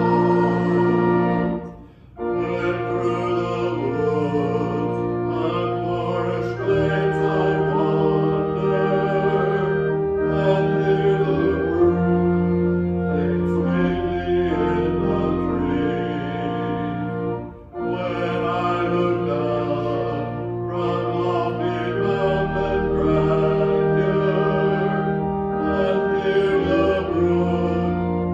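Slow music with singing over sustained chords, pausing briefly between phrases about two seconds in and again past the midpoint.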